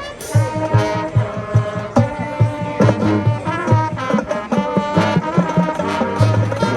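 High school marching band playing: brass chords over a steady low drum beat, with a cymbal crash just after the start.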